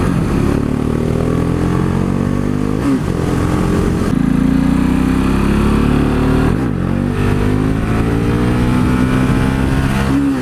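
KTM 690 Duke's single-cylinder engine breathing through an Akrapovic exhaust with the dB killer removed and the catalytic converter still fitted, accelerating hard through the gears. The pitch climbs, then drops at upshifts about three seconds in, about six and a half seconds in, and again near the end.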